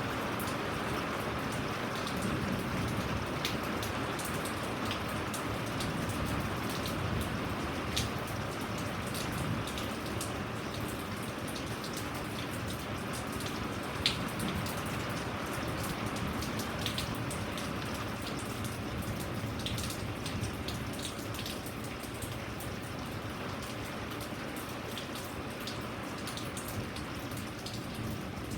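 Steady rainfall, an even hiss with individual drops ticking here and there, and one sharper, louder drop hit about halfway through.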